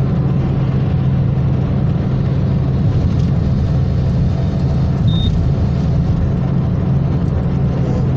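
Steady road and engine noise heard inside a car's cabin while cruising on a motorway: a low drone with tyre hiss. A short, high beep sounds about five seconds in.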